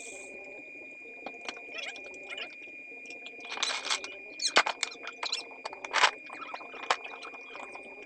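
Metal tools and a plastic tool case being handled: scattered clicks, knocks and rattles, the sharpest a couple of knocks about four and a half and six seconds in. A faint steady high tone runs underneath.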